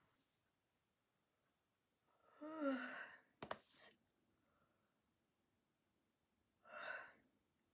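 A woman yawning: a long breathy yawn with a brief voiced sound that rises and falls in pitch about two and a half seconds in, then a sharp click, and a second breathy exhale near the end.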